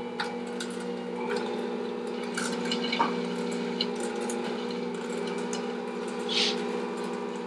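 Electric stand mixer running with a steady motor hum, beating butter, honey granules and eggs into a batter. A few light clicks and taps come from the bowl.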